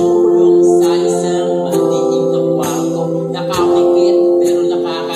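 Music: long held chords that change every second or so.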